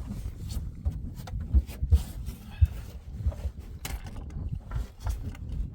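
Wind buffeting the microphone, with a handful of short, sharp clicks and knocks, the loudest a little under 2 seconds in and near the 3-second mark.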